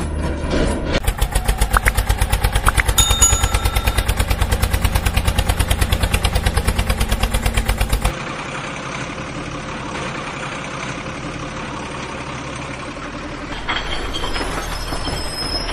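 Engine sound with an even chug of about seven beats a second, like a diesel idling, that cuts off abruptly about eight seconds in. A quieter steady engine hum follows.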